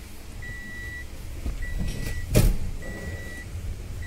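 Toyota Innova Crysta's dashboard warning chime with the ignition on: one high beep of about half a second, repeating a little under once a second. A heavy thump about halfway through is the loudest sound.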